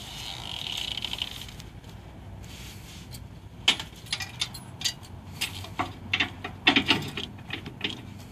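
Rear-mounted winch on a compact track loader being worked by hand. There is a brief rattling whirr, then from about three and a half seconds in, a string of irregular sharp metallic clicks and clanks from the winch and its hanging cable hook.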